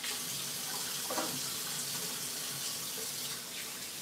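Kitchen tap running steadily into a sink.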